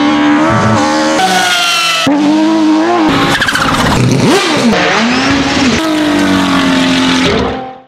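A rapid montage of rally and racing car engines at high revs, the engine note rising and falling through gear changes. It is spliced from short clips, so the sound changes abruptly about every second, and it fades out just before the end.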